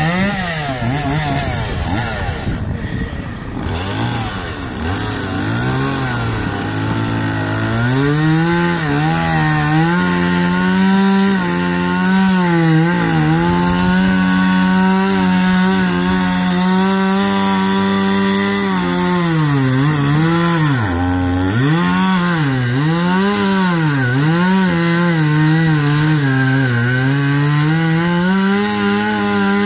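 Two-stroke chainsaw carving into an upright log. It revs up and down and drops to idle for a few seconds, then holds high revs for a long steady cut of about ten seconds, then falls and rises several times in shorter cuts.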